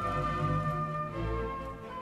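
Instrumental background music with held notes that change pitch every half second or so.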